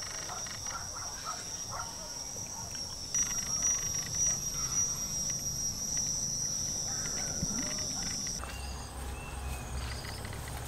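Steady high-pitched drone of forest insects chirring. It cuts off about eight seconds in, giving way to a low rumble.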